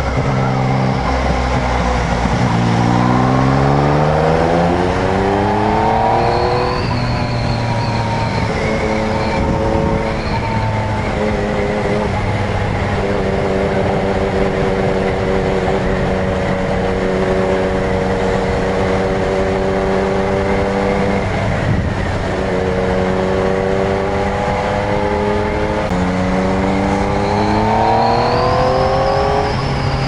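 Yamaha MT-09's three-cylinder engine under way: the revs climb for several seconds, settle into a steady cruise, and climb again near the end. Wind and wet-road noise run underneath.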